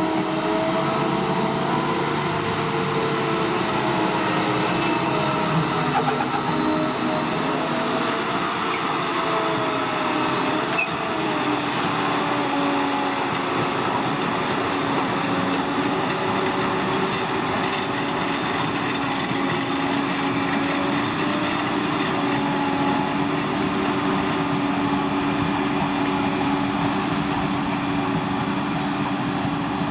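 Potato-harvesting machinery running steadily: engine and driveline tones with a slight, slow drift in pitch over a constant mechanical rumble.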